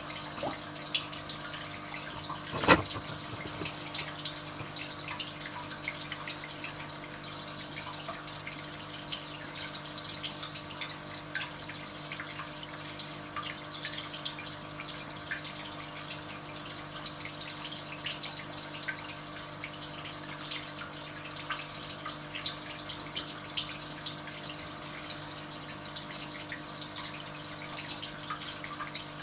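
Aquarium water trickling and dripping steadily over a low steady hum, with many small ticks and one sharp knock about three seconds in.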